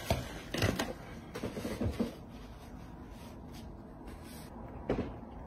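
A few soft knocks and clatters of small objects being handled on a table, bunched in the first two seconds, with one more near the end.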